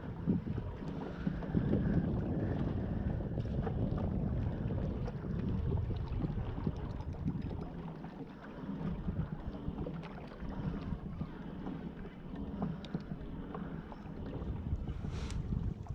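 Wind buffeting the microphone on a kayak out on the water, as an uneven low rumble that swells and eases, with a few light clicks and one sharper click near the end.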